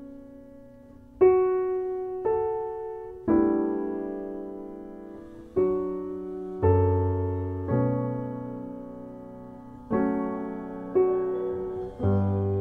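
Slow, gentle piano music as a background track: notes and chords struck in groups of about three, a second apart, each ringing out and fading before the next.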